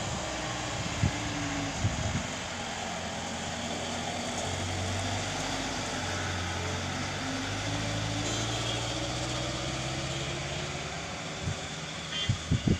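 Mini bus engine running as the bus works round a tight hairpin bend, its pitch sliding up and down with the throttle. It is a little louder as the bus passes close and fades as it pulls away uphill. There are a few short low thumps near the end.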